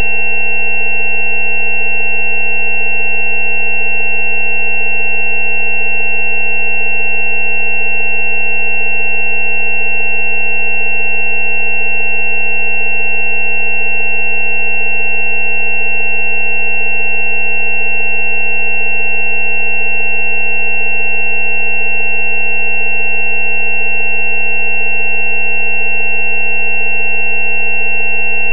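Steady electronic sine-wave tones held without any change: a low 190 Hz tone layered with several higher steady tones, the loudest of them a thin high pitch.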